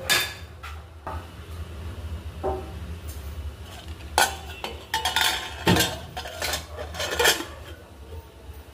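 Stainless steel pressure cooker pot and lid clinking and knocking as the lid is fitted and closed. The sharp metal clatters come irregularly, busiest in the second half, over a low steady hum.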